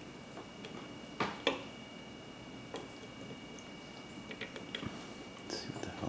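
Irregular light clicks and scrapes of a lock pick and tension wrench working the pins of an old cast iron Segal padlock during single pin picking, with two sharper clicks a little over a second in.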